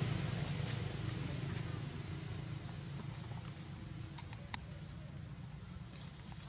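Steady high-pitched chirring of insects, with one sharp click about four and a half seconds in.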